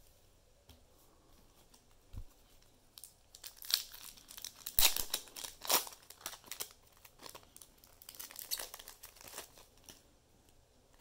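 Foil wrapper of a trading card pack being torn open and crinkled in the hands: a run of crisp crackling from about three seconds in until near the end, loudest around five seconds. A soft low thump comes about two seconds in.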